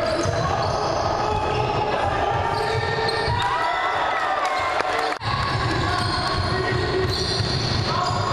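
Basketball game sounds in a large sports hall: the ball bouncing on the wooden court, short squeaks from players' shoes, and players' voices calling out. The sound drops out briefly a little after five seconds in.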